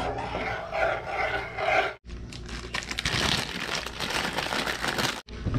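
About two seconds of indistinct, voice-like sound. From about two seconds in, a plastic instant-noodle packet crinkling and tearing, a dense run of crackly rustles that cuts off abruptly near the end.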